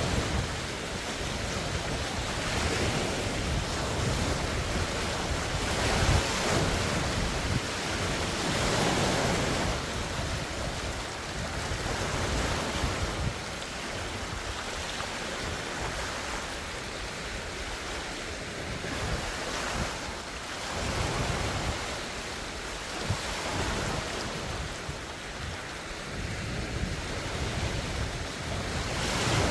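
Large wind-driven lake waves washing and splashing onto the shore, the surge swelling and ebbing every few seconds. Gusty wind rumbles on the phone's microphone.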